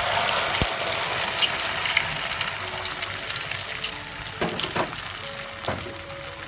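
Beaten egg mixed with onion, tomato, green chilli and boiled potato slices hitting hot oil in a non-stick pan and sizzling: strongest as it goes in, then slowly dying down, with a few crackles in the last couple of seconds.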